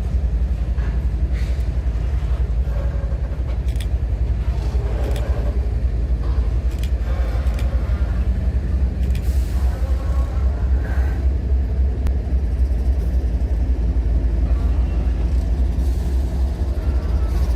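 Diesel locomotive running with a steady low rumble, with a few faint clicks and squeals over it.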